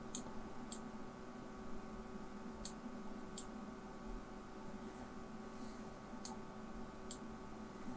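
Computer mouse clicking, about six short, sharp clicks in three pairs, over a faint steady hum.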